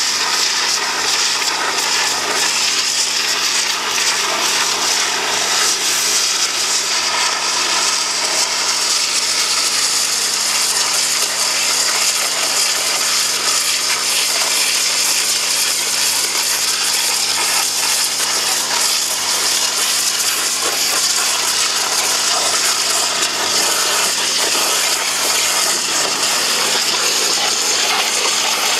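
Hot-water pressure washer's zero-degree jet blasting caked mud and grease off a steel excavator track: a loud, steady hiss and spatter. The washer's 14 hp Kohler gasoline engine runs steadily underneath.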